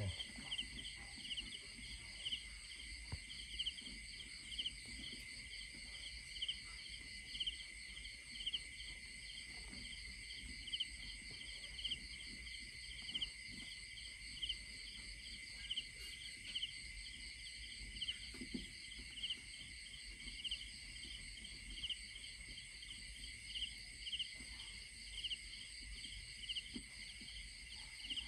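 Crickets and other insects chirring steadily in a chorus, with a louder pulsing chirp repeating about once a second.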